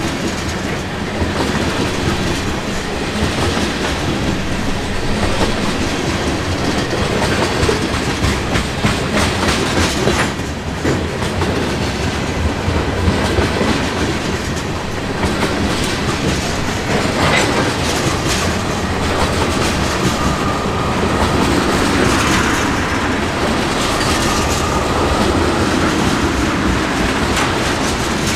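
Freight cars of a long CSX freight train rolling steadily past, with a continuous rumble and the clickety-clack of wheels over the rail. A faint high ringing tone from the wheels comes in about twenty seconds in.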